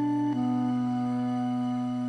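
Soft background music: a steady low drone with long held notes above it, changing to a new note about a third of a second in.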